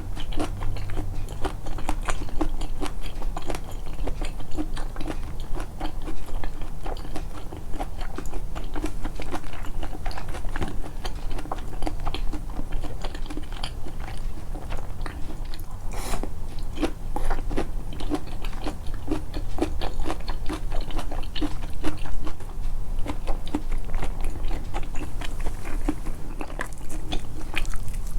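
A person chewing and biting food close to a microphone that brings out mouth sounds: a steady run of small, wet clicks and crunches, with one sharper crunch about halfway through.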